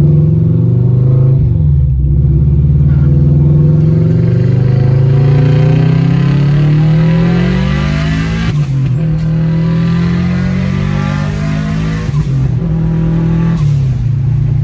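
Turbocharged Subaru flat-four with a big Tomioka 3071 turbo accelerating hard under boost, heard from inside the cabin. The engine note climbs steadily through the revs and drops at each gear change, about a second and a half in, about eight and a half seconds in, about twelve seconds in and again near the end, then climbs again.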